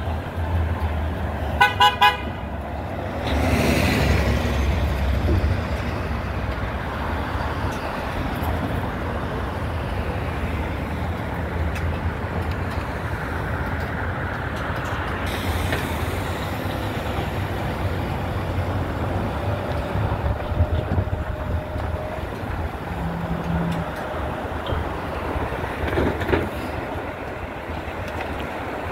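Busy city street traffic with vehicle engines running steadily. A vehicle horn honks three short times about two seconds in. A louder swell of engine and road noise follows just after, as a vehicle passes close by.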